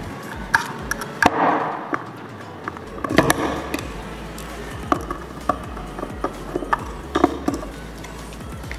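Scattered small clicks and taps of a precision screwdriver and fingers against the metal casing and head-stack parts of an opened hard disk drive, with a short scrape about a second and a half in.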